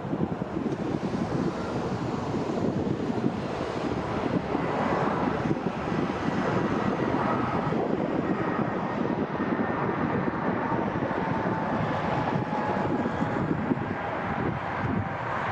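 Jet airliner engines running as the aircraft passes: a steady rush with a faint whine that slides slowly down in pitch.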